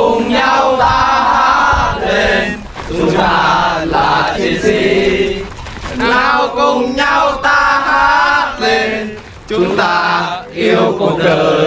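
A group of young male soldiers chanting together in unison while marching, in phrases of two to three seconds with short breaks between them.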